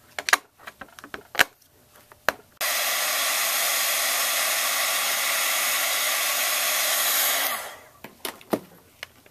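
A few sharp taps of a clear acrylic stamp block on an ink pad, then an embossing heat gun blowing steadily for about five seconds as it melts embossing powder, fading off near the end, followed by a few light knocks.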